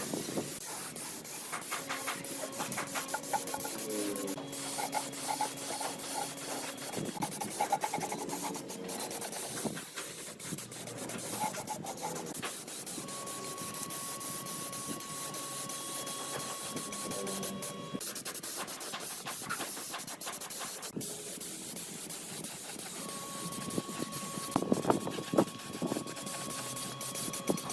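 Workshop work noise: steady hiss and rubbing or scraping with many small clicks, and a steady whine that comes in twice, about thirteen and twenty-three seconds in.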